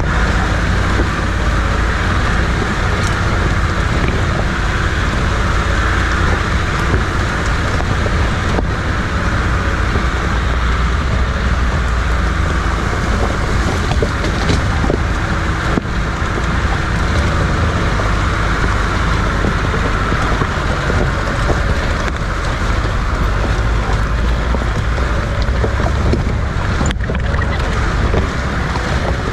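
Safari jeep driving along a rough dirt track, its engine and tyres running under a steady, heavy rumble of wind on the microphone.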